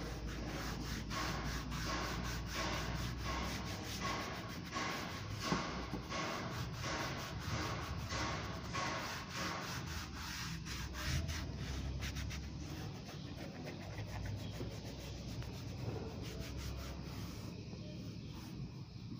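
Small orange applicator pad rubbed back and forth over a car's textured black plastic wiper cowl panel, working in plastic restorer: a quick, rhythmic scrubbing that is busiest in the first half and thins out later.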